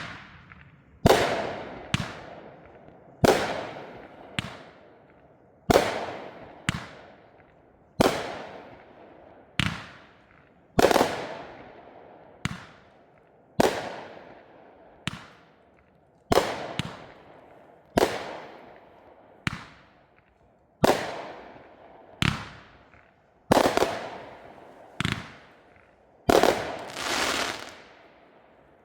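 Sky Painter 'Smash Hammer' consumer multi-shot fireworks cake firing about twenty sharp bangs, one every second or so, each trailing off in an echo. Near the end the bangs give way to a longer crackling burst.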